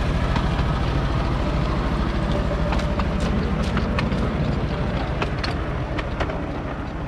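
Miniature railway train running along the track, heard from on board: a steady low rumble, with sharp clicks of the wheels over the rail joints from about a third of the way in.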